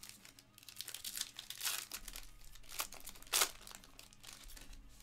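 A black foil 2022 Topps Inception baseball card pack being torn open and crinkled by hand, a string of irregular crackles that are loudest twice, just under two seconds in and again about three and a half seconds in.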